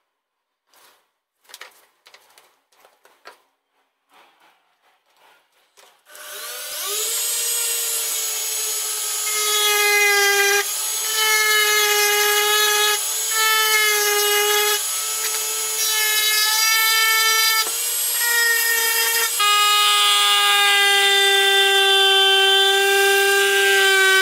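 Faint scratching of a hand-held metal point on wood, then a handheld rotary tool spins up about six seconds in and runs with a steady high whine. The whine dips briefly several times as its small bit engraves into the wood.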